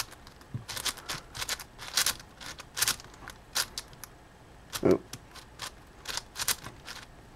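Plastic layers of a YJ Yufu V2 M magnetic 7x7 speed cube clicking and clacking as it is turned quickly by hand, in quick irregular runs of turns, with one louder clack about five seconds in.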